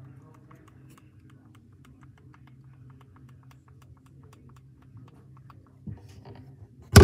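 Buttons on a small handheld remote for an LED light bar pressed over and over, a run of small plastic clicks several a second. A loud thump comes at the very end.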